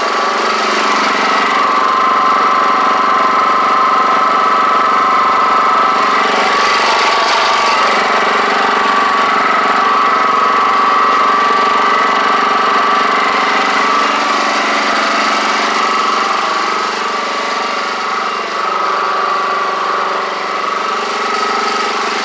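WEN portable generator's small engine running steadily at a constant speed.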